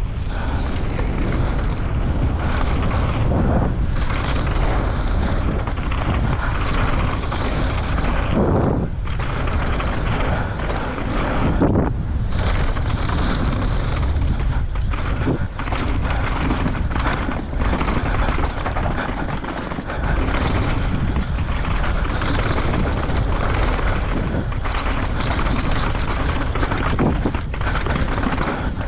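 Wind rumble on a mountain bike rider's on-board camera microphone, over the noise of tyres on a dry, dusty downhill trail, with occasional knocks from bumps.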